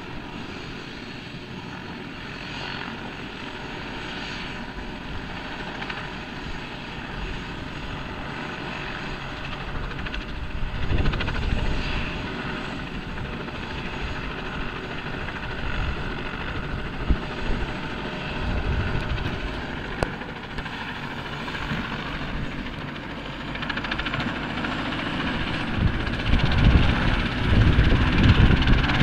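Helicopter running on the ground before take-off, its engine and rotor noise growing steadily louder, with a faint rising whine near the end.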